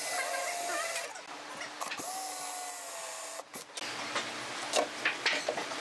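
Cordless drill driving screws into wood: its motor whines in two runs of about a second each. In the second half come several short, sharp bursts from a cordless impact driver.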